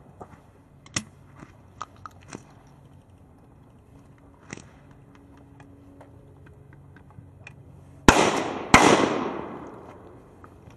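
Shotgun fired twice in quick succession near the end, the shots about two thirds of a second apart, each trailing off over about a second. A few faint clicks come before them.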